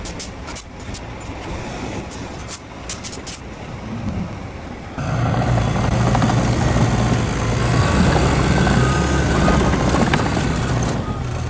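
A crawler dozer's diesel engine running close by, loud and steady, coming in suddenly about five seconds in. Before it, a quieter heavy-truck engine runs with a few sharp clicks.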